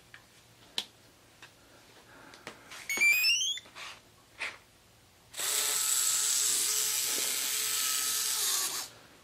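Electric retractable landing gear for a model airplane: the jack-screw motors in both units run together for about three and a half seconds, a steady electric whir, as the gear cycles. A few seconds earlier there is a short run of rising electronic chirps, with light handling clicks.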